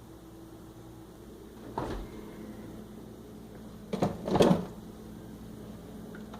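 Kitchen handling sounds: a knock about two seconds in, then a louder cluster of knocks and clatter around four seconds, like a door or cupboard being opened and closed, over a steady low hum.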